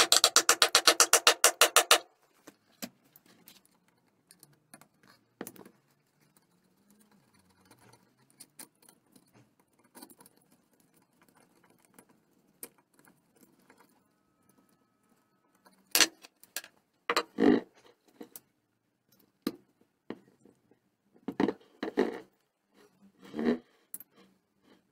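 Ratchet wrench clicking rapidly for about two seconds while turning engine bolts. Then come light clinks of tools and metal parts being handled, with a few louder knocks as the engine and tools are moved on a wooden workbench, about two-thirds of the way in and again near the end.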